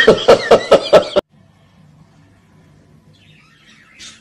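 A person laughing hard in rapid pulses, about five a second, that cut off suddenly about a second in. A faint low hum follows, then faint chirps of budgerigars near the end.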